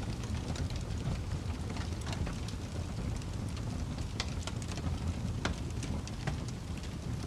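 Wood fire crackling steadily over a low roar of the flames, with several sharper, louder pops scattered through.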